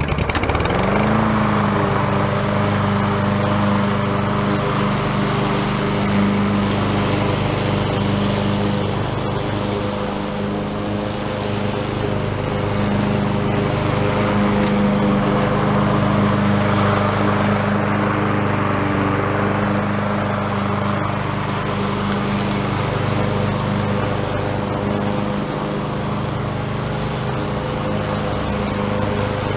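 Husqvarna rear-bag push mower's small engine starting, catching about a second in, then running steadily while cutting grass.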